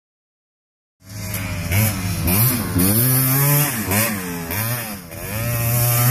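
Silence for about a second, then a sport ATV's engine revving up and down over and over as it is ridden round a dirt track, its pitch rising and falling with each burst of throttle.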